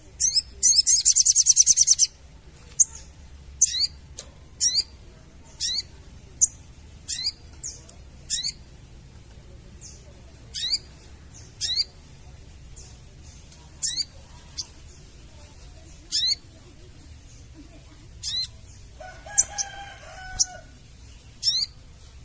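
Sogon bird chattering: a fast, loud trill of high notes in the first two seconds, then short high calls that sweep downward, repeated about once a second. A lower, longer call sounds once near the end.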